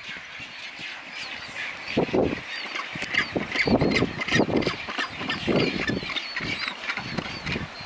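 Southern rockhopper penguins calling in their colony: many overlapping calls, with louder ones about two, four and five and a half seconds in.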